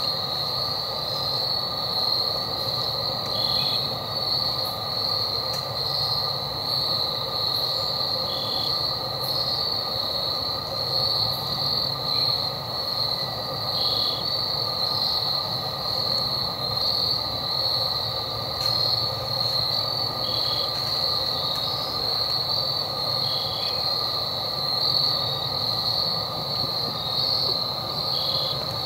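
Steady insect chorus in the woods, a continuous high-pitched shrill with fainter lower layers, and a short chirp repeated about every five seconds.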